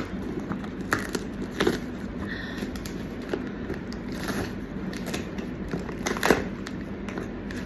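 A parcel's packaging being handled and pulled open by hand, with crinkling and scattered sharp clicks and snaps over a steady low hum.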